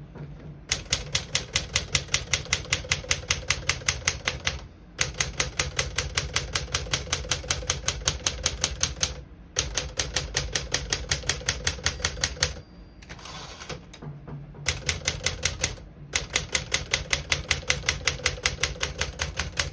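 Keys of a 1958 Smith-Corona Clipper manual portable typewriter being typed quickly, about six strokes a second, in runs of several seconds with short pauses. Every key strikes cleanly with none sticking.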